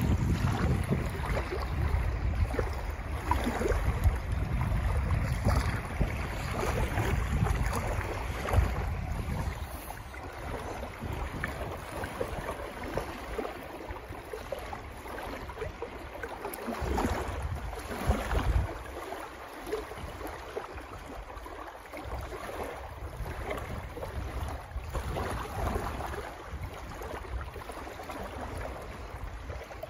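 Wind buffeting the microphone over choppy lake water, with small waves slapping and splashing. The wind rumble is strongest for the first ten seconds or so, then eases to a lighter rush of wind and lapping water.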